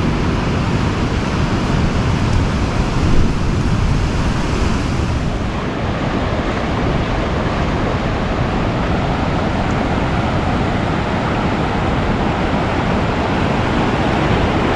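Ocean surf breaking and washing up over the beach in a steady rush, with wind on the microphone adding a low rumble.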